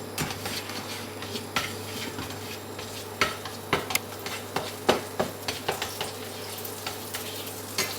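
Irregular clinks and knocks of a utensil against a pan or bowl over a faint sizzle of butter in a hot frying pan, with a low steady hum underneath.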